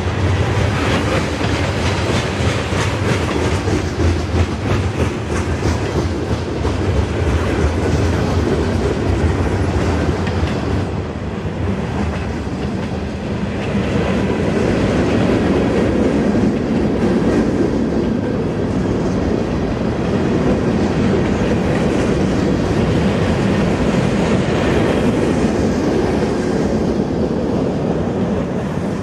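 CN freight train cars (tank cars, covered hoppers, a coil car) rolling past close by: a steady rumble of steel wheels on rail, with a quick run of wheel clicks over the rail joints.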